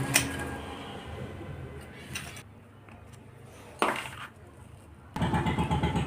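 Metal tools and parts clinking during motorcycle reassembly: a few sharp metallic clinks with brief ringing, then a steady low pulsing rumble starts about five seconds in.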